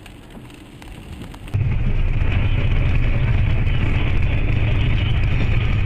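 Steady driving noise of a car at speed heard from inside the cabin through a dash cam: low engine and tyre rumble with a hiss. It starts abruptly about one and a half seconds in, after a short stretch of quieter road noise.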